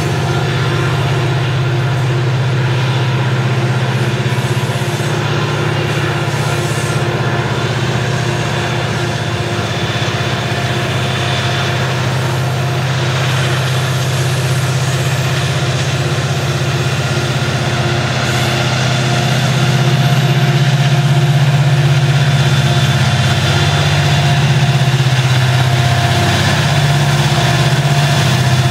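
Montana Rail Link diesel-electric locomotives running under load with a coal train, a steady low engine drone that grows louder about twenty seconds in as the units draw near.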